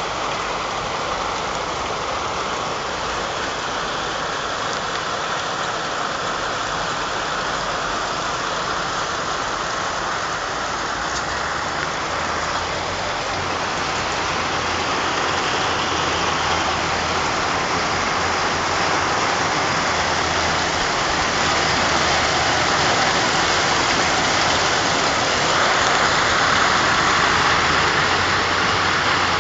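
Heavy rain pouring down in a steady hiss, growing a little louder toward the end. A low steady hum, like an idling engine, sits under it from about halfway through.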